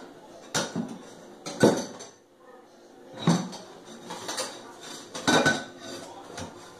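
Dishes and kitchenware clattering and knocking in a stainless steel sink as a baby handles them: irregular knocks about half a dozen times, loudest about two seconds in and again a little after five seconds.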